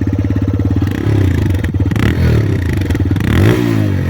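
TVS Raider 125's single-cylinder engine running through its stock exhaust, idling and then revved several times from about a second in. The pitch rises and falls with each rev, and the biggest rev comes near the end.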